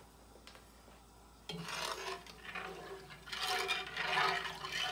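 A long metal slotted spoon stirring reused fish-frying grease in a cast-iron Dutch oven, scraping against the pot and sloshing the oil. It starts suddenly about a second and a half in and goes on unevenly.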